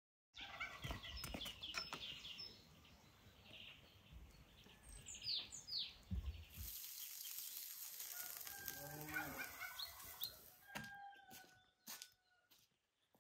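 Small birds chirping with short, falling high calls, and a rooster crowing past the middle. A few sharp clicks come near the end.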